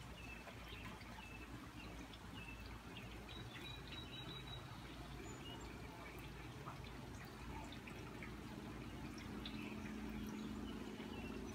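Faint rainwater dripping and trickling after a thunderstorm, with scattered small drips, over a steady low rumble. A low drone swells about eight seconds in.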